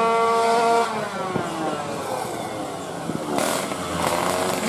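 Tuned 116cc underbone racing motorcycle engine held at high revs, then the revs fall away about a second in and the sound turns into a rougher, mixed engine noise.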